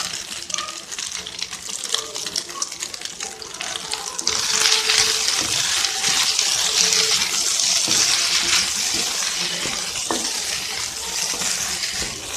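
Kolukattai being stirred and fried in a kadai, crackling. About four seconds in, a louder steady hiss starts suddenly and holds, with a single sharp click near the end.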